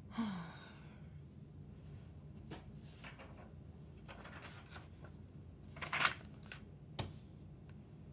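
A short falling vocal sound, like a sigh, at the start. Then scattered rustling and handling noises near the recording phone, the loudest about six seconds in, and a sharp click a second later.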